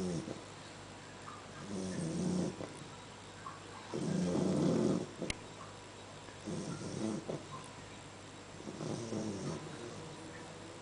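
One-month-old Great Dane puppy snoring in its sleep: a rough, pitched snore on each breath, about every two and a half seconds. The snore about four seconds in is the loudest and longest.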